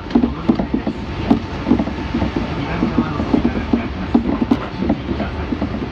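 Kintetsu electric train running, heard from inside the passenger car: a steady rumble with scattered clicks of the wheels over the rail joints.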